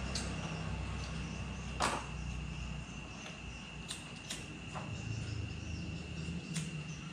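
Steady high-pitched cricket trill with a low rumble underneath that fades out about three seconds in. A few short sharp clicks fall on top, the loudest about two seconds in.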